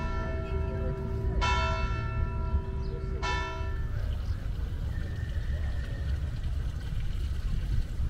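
Church bell tolling in single strokes about two seconds apart, each stroke ringing on and dying away; the last stroke comes about three seconds in and its ringing fades out by about four seconds. A steady low rumble runs underneath.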